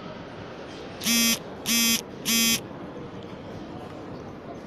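A harsh electric buzzer sounds three short, equal blasts of about half a second each, evenly spaced a little over half a second apart, over a steady hall hubbub.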